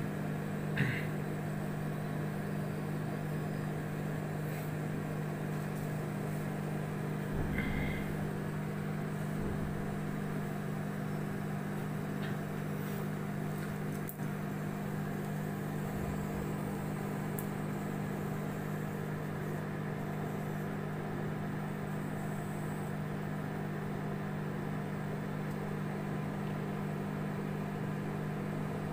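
Samsung microwave oven running, a steady low hum, with a brief knock about a second in.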